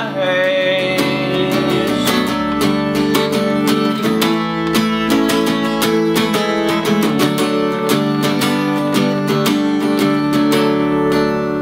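Tanglewood acoustic guitar strummed in a steady rhythm through an instrumental break. A held sung note trails off in the first second.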